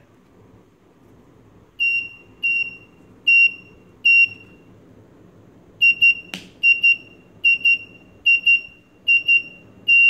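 The home-alarm buzzer on the Raspberry Pi breadboard gives four short high beeps a little under a second apart. It then sounds quick double beeps at a steady pace, marking the arming countdown. A single sharp click comes about six seconds in.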